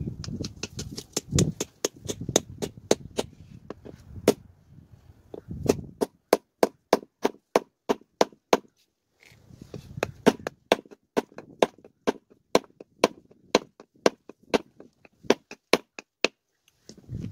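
A hammer knocking repeatedly on the end of a wooden hatchet handle, driving it up through the head's eye to seat the head. The blows come steadily, about three a second, with a short pause about halfway through.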